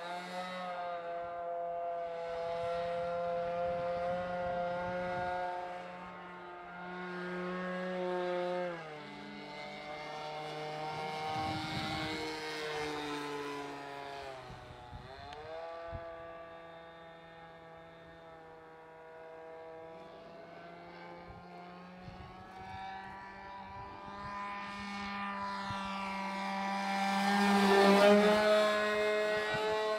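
Small nitro glow engine of a Hangar 9 Twist 40 RC aerobatic plane running in flight, its pitch shifting as the plane manoeuvres. The pitch drops sharply twice, about nine and fifteen seconds in, and the engine grows loud in a close pass near the end.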